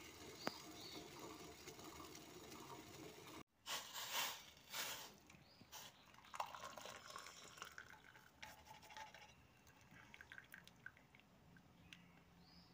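Hot tea poured from a steel pot through a plastic tea strainer into a cup, splashing loudly for about a second and a half, then faint drips and small clicks.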